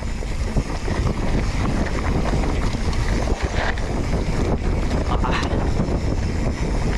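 Wind buffeting the microphone while a rigid-fork mountain bike rattles and clatters over a rocky downhill trail, with many small knocks from the bike and tyres on stones.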